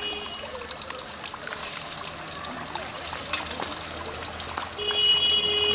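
Shallow pond water trickling and lapping as a man wades in it and works his hands through the water, with small scattered clicks. A vehicle horn sounds for about a second near the end, the loudest thing, and another horn blast is just ending at the very start.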